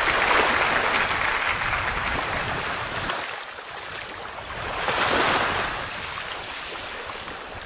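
Ocean surf, a steady rush of waves that swells near the start and again about five seconds in, then eases.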